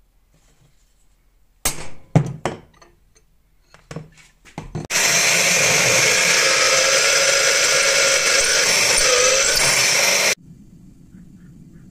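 A centre punch being struck on a crucible (wootz) steel bar in a vise, about six sharp metallic taps, then a drill press boring into the steel bar with a loud steady grinding for about five seconds that cuts off suddenly, leaving a low motor hum.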